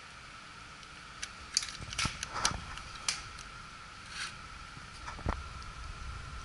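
Sharp plastic clicks and taps as a wiring harness plug is pushed into the connector of an X13 blower motor and the wires are handled. There is a quick run of clicks from about one to three seconds in and a few more near the end, over a faint steady hum.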